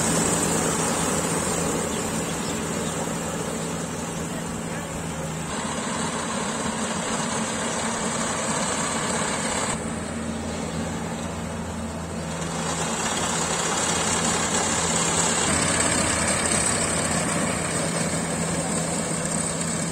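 Engine of a paddy harvesting machine running steadily, its steady drone dipping in the middle and growing louder again later on.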